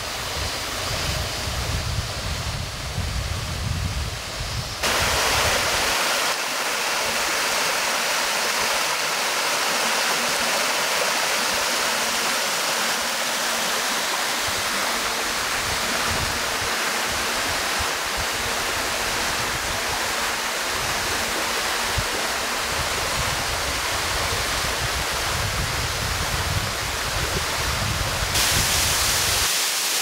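Water of a mountain stream and waterfall rushing over rocks in a steady, even rush, with a low rumble under it in the first few seconds. About two seconds before the end the rush turns brighter and hissier.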